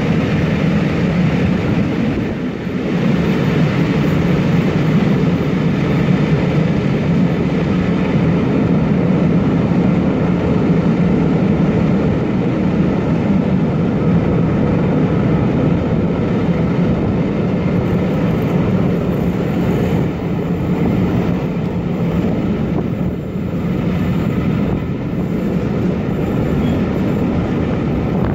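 Steady, loud running noise of a locomotive-hauled passenger train's coaches, wheels rumbling on the rails, heard from an open window with air rushing past.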